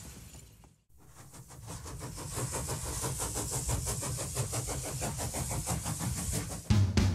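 Small pull-back toy train's spring motor whirring with a fast, even buzz as it runs along the track, growing louder after about a second. Near the end a loud drum beat of music comes in.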